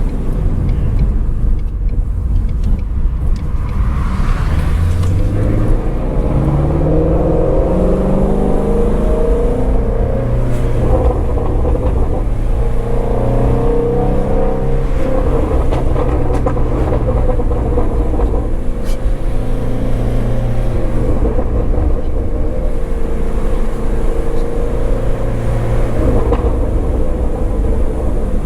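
2019 Shelby GT350R's 5.2-litre flat-plane-crank V8 running under way: its note climbs as the car accelerates a few seconds in, then settles into a steady cruising note for most of the rest.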